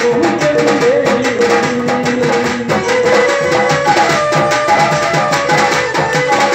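Instrumental interlude of a live devotional song: a fast hand-drum rhythm with an electronic keyboard holding and moving between sustained melody notes, no singing.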